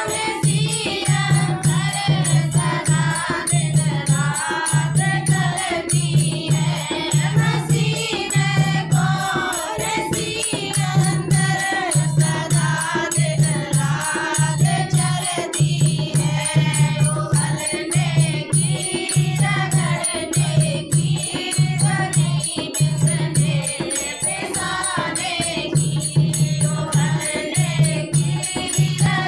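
A Hindi devotional bhajan sung by a group of women, with a steady low drum beat about once a second and continuous jingling percussion.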